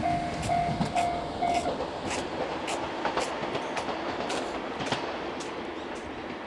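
Train wheels clacking over rail joints as a train runs through a level crossing, the clacks slowly fading. The crossing's warning bell is still ringing in steady pulses at first and stops about two seconds in.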